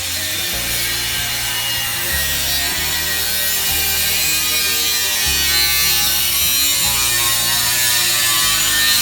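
Background music with a bass line that steps between held low notes every second or so, under a bright, busy high end.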